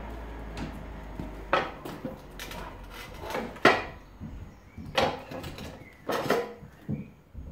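A series of sharp clunks and knocks, roughly one a second, as a vintage Ducati 350 motorcycle is wheeled over concrete and its front wheel is pushed into a metal wheel chock.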